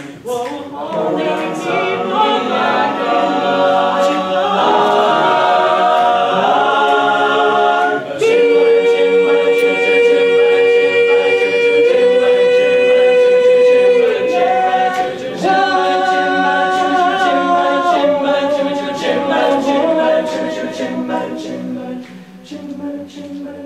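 High school a cappella group singing wordless sustained chords in close harmony, the closing bars of the song. The chords shift every few seconds, with one long held chord in the middle, and the singing drops away near the end.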